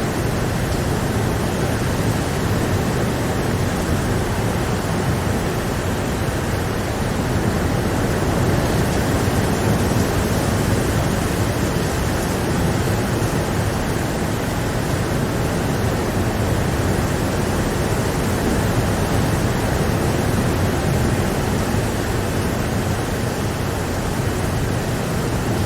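Steady heavy rain: a dense, even hiss that holds constant throughout.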